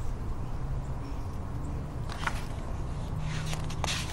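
Page of a hardcover picture book being turned, with a few brief papery rustles in the second half, over a steady low background rumble.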